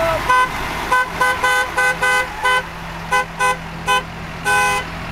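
A vehicle horn tooted in a run of about a dozen short, quick honks, with one longer blast near the end, as trucks drive past in a parade. A low steady hum runs underneath.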